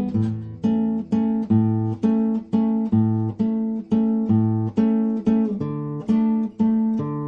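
Acoustic guitar music: strummed chords at a steady, even pace, about two strokes a second, each ringing out until the next.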